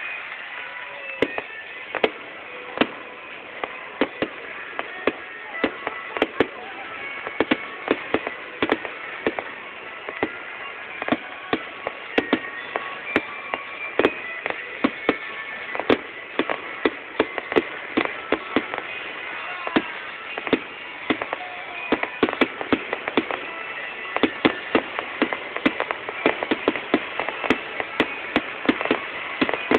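Fireworks going off: a long run of sharp, irregular bangs and pops, at times several a second and coming faster near the end, over a steady hiss.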